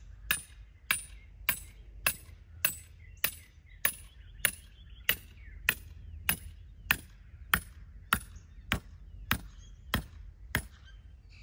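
Hammer striking a metal anchor spike, driving it into a drilled hole in the ground to anchor a solar panel ground-mount rack. About eighteen steady, evenly paced blows with a ringing metallic clang, about one every 0.6 seconds, stopping shortly before the end.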